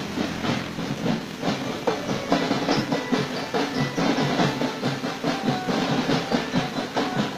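A primary-school marching drum band playing: fast, dense, even drum strokes, with a few held melody notes over them.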